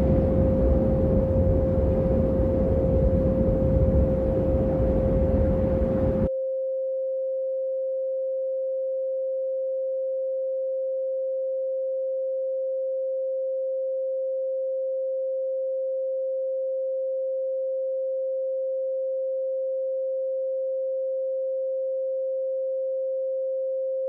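A single steady, mid-pitched pure sine tone of a frequency-listening track. For about the first six seconds it sits over a layer of rumbling noise, which cuts off suddenly, leaving the bare tone holding unchanged.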